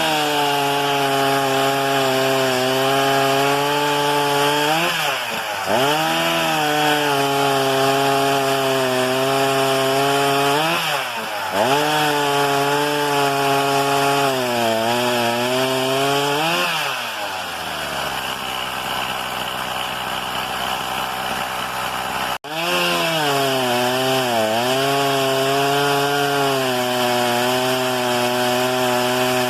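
Petrol chainsaw running at high revs, its pitch sagging and recovering about every six seconds as it bogs in the cut, typical of sawing firewood. The sound drops out for an instant about three-quarters of the way through, then the saw carries on.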